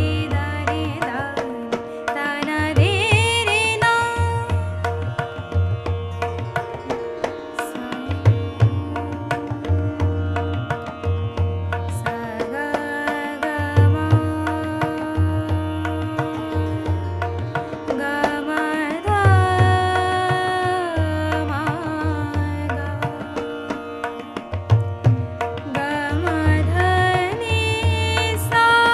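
A woman singing a Hindustani tarana in raga Jog Kauns, with gliding, ornamented melodic runs, accompanied by tabla playing teentaal over a steady drone.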